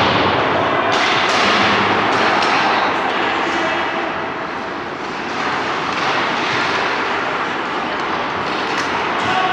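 Ice hockey game play: a steady scraping hiss of skate blades on the ice, broken by a few sharp clacks of sticks and puck.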